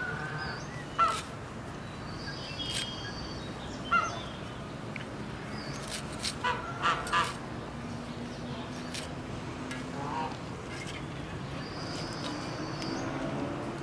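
Domestic fowl calling in short, separate calls over a steady outdoor background: single calls about one and four seconds in, then a quick run of four a little past the middle.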